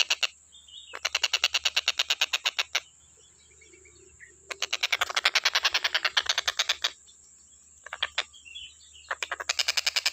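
A tengkek buto kingfisher calling in rapid trains of sharp, evenly spaced notes, about ten a second. Each run lasts around two seconds, with short pauses between runs.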